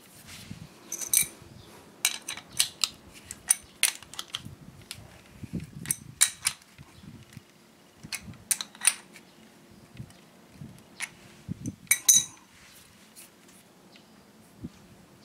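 Irregular metallic clinks and clicks of small hardware being handled: a bolt, nut and washers fitted through a drill chuck and wooden discs and tightened with an adjustable wrench.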